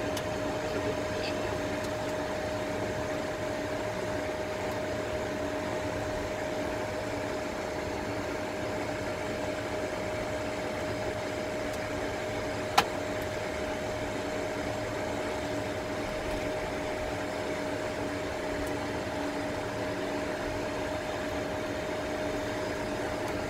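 Steady flight-deck hum of a Boeing 747 on the ground: an even rumble with a constant tone from the idling engines and the cockpit's air and avionics cooling, holding level throughout. A single sharp click sounds about halfway through.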